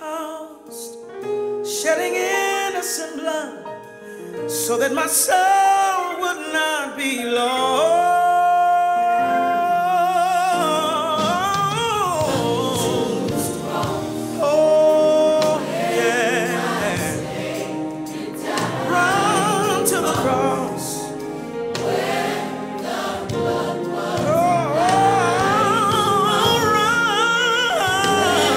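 Recorded gospel song playing: singing with a choir over musical accompaniment, sparse at first and filling out about five seconds in.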